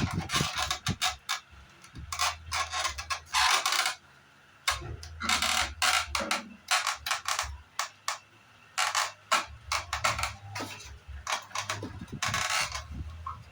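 Parts of an air conditioner being handled and fitted together by hand: irregular clicks, scrapes and knocks of plastic, styrofoam and metal pieces, over a faint low hum.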